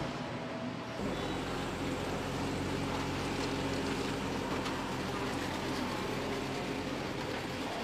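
Steady mechanical noise of a car assembly plant: machinery hum with a few faint steady tones, growing fuller and lower about a second in.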